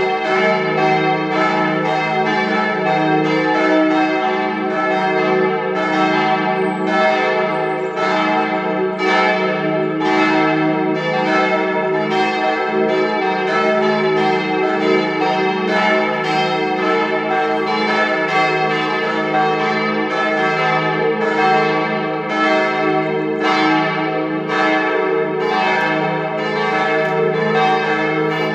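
Partial peal of several church bells of a Catholic church, swinging together, their strikes overlapping in steady continuous ringing.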